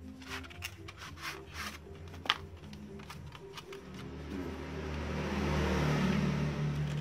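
Plastic packaging crinkling and rustling as an SSD's box is unwrapped, with one sharp click a little over two seconds in. A louder rubbing noise swells up in the second half, over background music.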